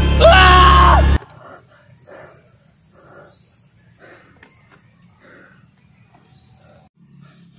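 Eerie horror music with a loud wavering pitched cry over it cuts off abruptly just over a second in. It gives way to quiet outdoor ambience carried by a steady, high-pitched insect buzz with a brief break near the end.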